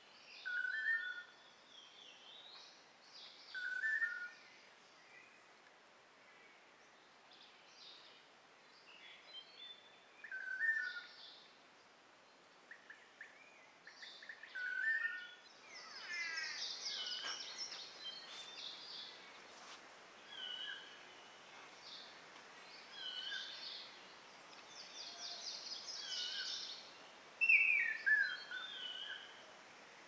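Several wild birds calling: a short whistled call repeats every few seconds, then a denser mix of high chirps and trills comes in about half way, and a loud falling whistle stands out near the end.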